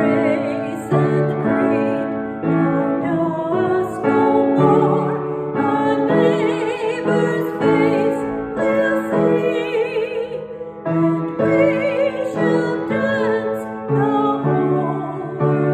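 A woman singing a hymn with vibrato, accompanied by piano chords.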